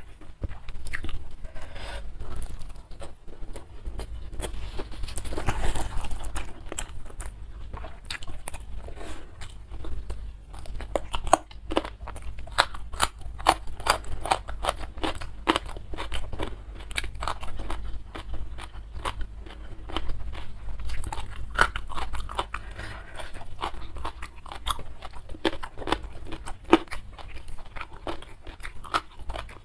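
Close-miked chewing and crunching of rice with sambal and raw vegetables, eaten by hand. Many sharp, wet clicks come from the mouth, several a second, in an irregular rhythm.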